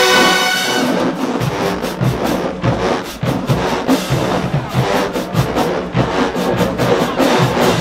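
Marching band's brass section holding a loud chord that cuts off about a second in, then the drumline playing a fast, driving beat while the horns stay silent.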